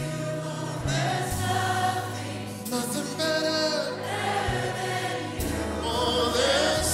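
A congregation singing together with a male worship leader and a live worship band. The many voices carry the tune over held bass notes that change every second or two.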